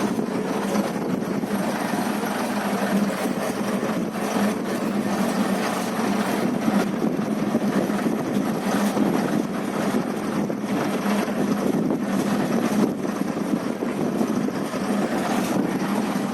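Fishing boat's engine running steadily at constant speed, with a steady low hum.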